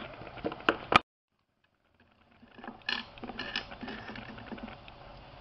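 Small plastic toy figures and miniature toy dishes handled and set down on a tabletop: scattered light clicks and taps with rustling. The sound cuts off suddenly about a second in and comes back after a second of silence.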